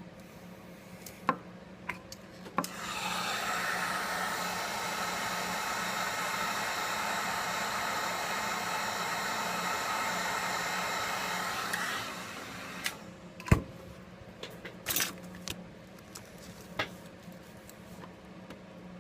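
A steady hiss of blowing air for about nine seconds, with light clicks and taps of small tools and phone parts before and after it.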